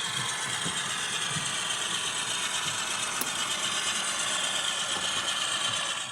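A small mechanism running steadily with a fine, ratchet-like rattle. It fades in at the start and fades out near the end.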